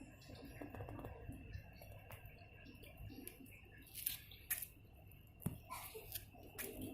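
Faint crackling and clicking from inside a termite nest, with a few sharper clicks in the second half.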